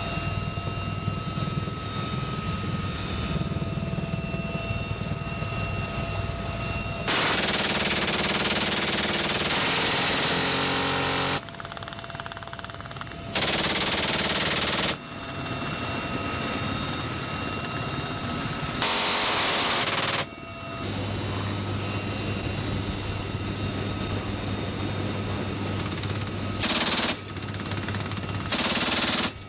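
GAU-18 .50-calibre machine gun (an M2 Browning) firing from a helicopter's open door in five bursts: a long one of about four seconds, two of a second and a half or so, then two short ones near the end. Between bursts the helicopter's steady turbine whine and rotor noise carry on.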